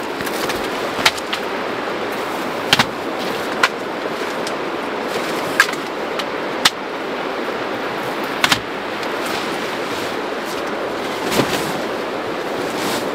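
Footsteps on pebbles and camping gear being handled, with about a dozen sharp clicks and knocks scattered throughout, over a steady rushing background noise.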